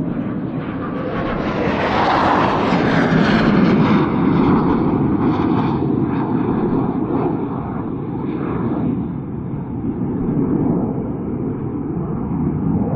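Jet engine noise of a low-flying twin-engine F-15 fighter passing close by. It swells to its loudest about two to four seconds in, then eases off as the jet flies on down the valley.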